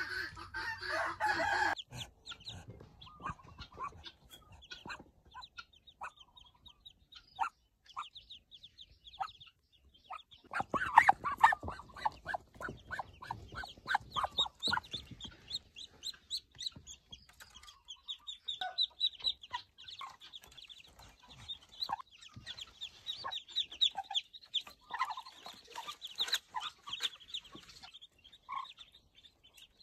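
A brood of newly hatched Muscovy ducklings peeping in a rapid, high, continuous chorus. About ten seconds in there is a louder stretch of rustling and scuffling in the straw.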